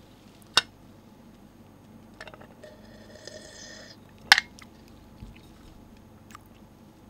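A person drinking from a cup: a drawn-out slurp in the middle, followed by a sharp click, with another sharp click about half a second in and small mouth and cup clicks between.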